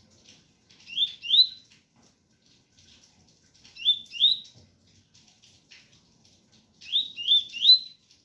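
Double-collared seedeater (coleiro) singing its 'tui tui' song: short rising whistled notes in groups of two, two and then three, about three seconds apart, over faint rain patter.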